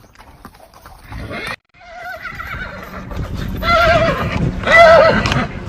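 Farm animal calling: a run of short, quavering cries that start faint after a brief cut and grow loud, with two loud calls near the end.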